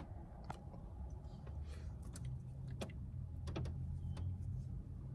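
Quiet car cabin: a steady low hum, growing slightly about two seconds in, with a few light clicks and taps scattered through it.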